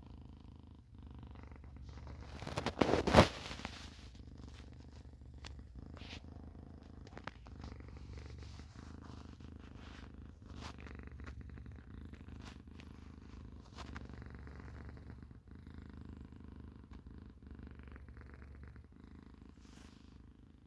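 A pet snoring: a low, steady, rhythmic rumble, with a much louder, harsher noisy burst about three seconds in.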